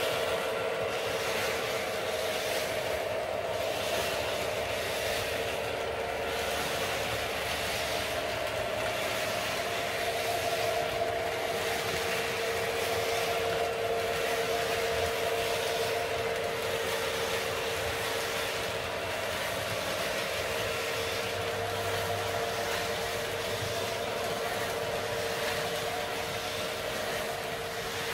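O scale model train running: a CSX diesel locomotive pulling freight cars along three-rail track. It makes a steady, unbroken hum with two held tones from the locomotive's motor and running gear, over a rolling rumble of the wheels on the track.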